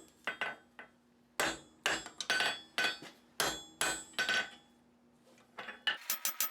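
Hand hammer forging 1/2-inch square steel bar on an anvil: a dozen uneven blows, each with a short metallic ring. After a pause of about a second, a quick run of lighter, faster taps begins near the end.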